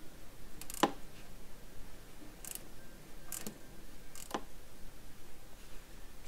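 Four short metallic clicks about a second apart as a 14mm wrench works loose the drain plug on a BCS two-wheel tractor's transmission housing.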